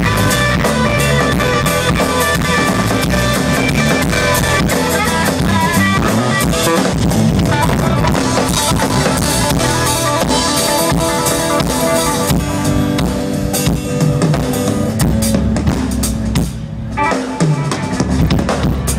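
Live band playing an instrumental passage on drum kit and guitar during a sound check, steady and loud, breaking up into a few scattered drum hits near the end.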